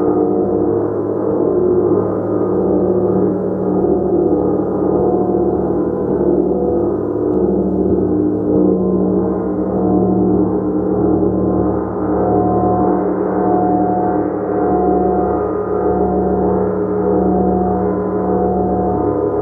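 Gong played continuously: a sustained, dense wash of many overlapping low tones that swells and eases gently without distinct separate strikes.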